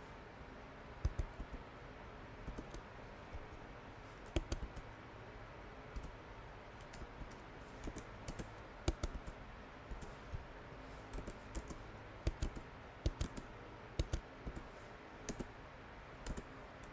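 Typing on a computer keyboard: scattered keystroke clicks in short irregular clusters with pauses between them, over a steady faint hiss.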